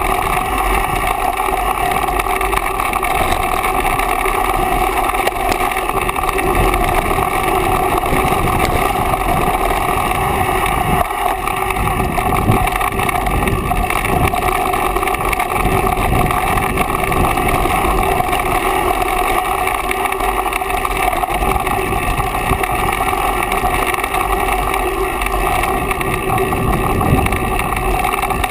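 Mountain bike rolling fast along a dirt singletrack: a steady, loud rush of wind and tyre noise, with scattered knocks and rattles from bumps in the trail.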